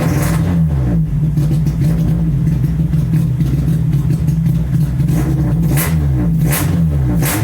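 Car engine running and being revved in quick throttle blips, the pitch rising and falling in the first second and again near the end, with a steadier stretch between and three short sharp sounds near the end. The engine has poor throttle response, which was traced to a faulty MAP sensor and an intermittently failing number-four injector.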